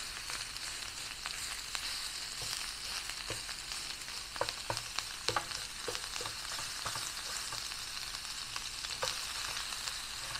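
Ground pork sizzling as it browns in a hot pan over a high-output butane burner, with a utensil scraping and clacking against the pan as the meat is broken up; the knocks cluster about four to seven seconds in.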